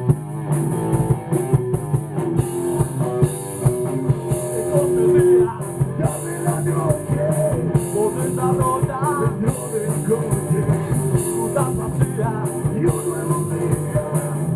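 Rock band playing: electric guitars, bass and drum kit, with a lead guitar line or sung melody over it.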